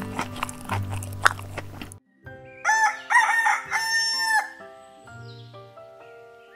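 Background music with a clicking beat that cuts off about two seconds in; then a rooster crows once, a few short notes ending in a longer held one, over soft sustained music.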